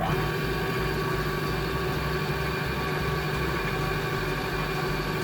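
Electric motor of a bench belt-and-disc sander running steadily with a constant whine, switched on abruptly. Background music plays underneath.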